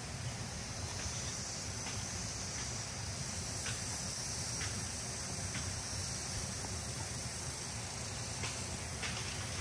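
Outdoor ambience: insects trilling steadily over a low, steady rush, with a few faint ticks scattered through it.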